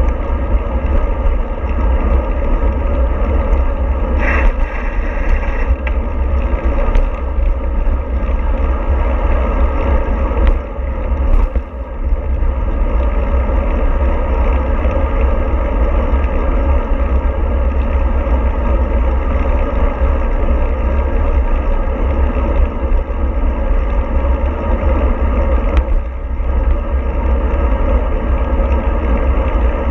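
Steady low rumble of a moving vehicle, with a brief higher-pitched sound about four seconds in.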